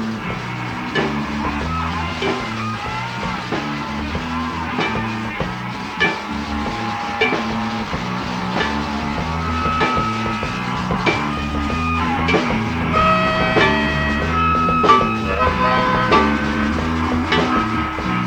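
Rock music with electric guitar, a bass line and a drum kit keeping a steady beat.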